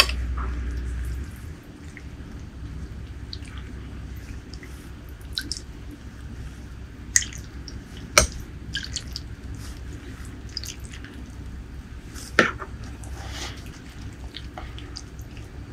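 Roselle leaf soup dripping and splashing softly as wet leaves are scooped out of a glass bowl of broth and lifted over rice, with a few sharp clicks along the way.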